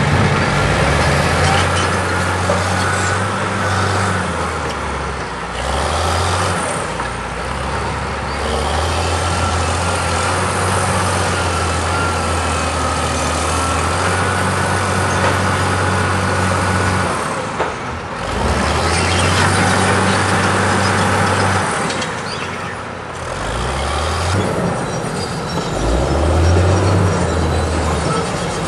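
Diesel engine of a heavy tracked crawler tractor working under load against an overturned railcar, its pitch stepping up and down as the throttle changes, over a broad rushing noise with a thin steady high whine.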